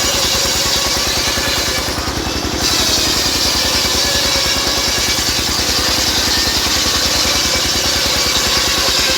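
Engine-driven circular saw rig running steadily, the engine's even pulse under a loud high hiss from the saw; the hiss drops briefly about two seconds in, then returns.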